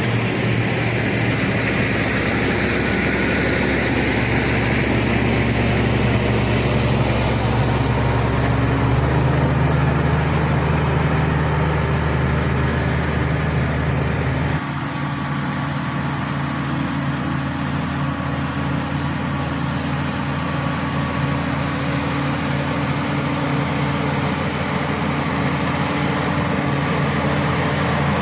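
SD16 bulldozer's diesel engine running steadily under work. The engine note shifts abruptly twice, about a third of the way in and again about halfway through.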